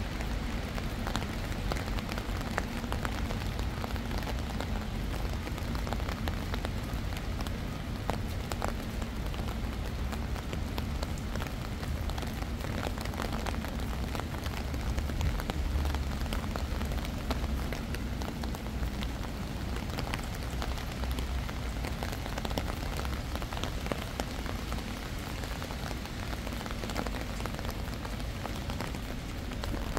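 Steady rain falling, with many separate drops pattering, over a low rumble.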